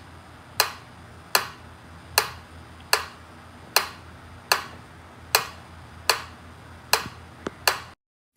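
Mechanical metronome ticking at an even beat, a little over one tick a second, with a couple of fainter clicks near the end before it stops suddenly.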